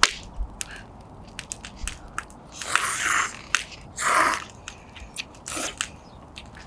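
Someone eating close to the microphone: chewing and mouth noises with many small sharp clicks, and two longer noisy bursts about three and four seconds in.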